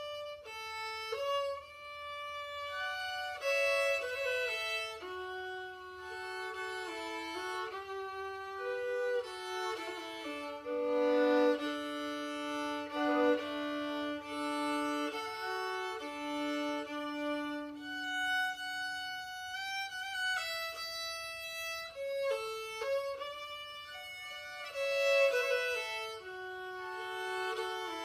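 Solo violin played unaccompanied, a slow melody of long bowed notes moving from one pitch to the next.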